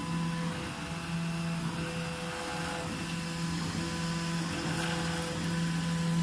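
MINGDA MD-666 large-format 3D printer printing: its stepper motors whine in steady tones that break off and change pitch every second or so as the print head changes moves. A fan whirs steadily underneath.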